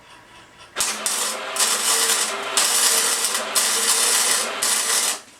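Electric arc welder laying a short weld on small steel gun parts: the arc's crackling hiss starts suddenly about a second in, breaks briefly three or four times, and cuts off sharply near the end. The owner says this welder has always had a pulse in it, which he thinks may be a flaw in the reconditioned unit.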